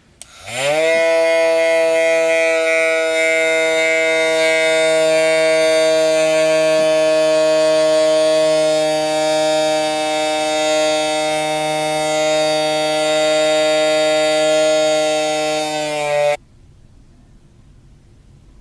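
Small electric motor and fan of a homemade mini vacuum cleaner spinning up within the first second to a steady high whine, running for about sixteen seconds, then cutting off suddenly.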